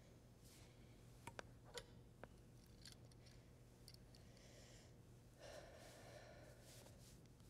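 Near silence: quiet room tone with a low steady hum, a few faint clicks between one and two seconds in, and a soft breath about five and a half seconds in.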